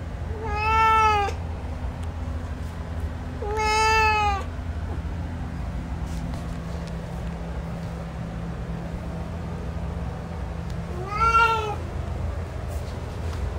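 Male domestic cat meowing three times. Each meow is under a second long and arches up then down in pitch. The first two come about three seconds apart, and the third follows after a longer pause near the end.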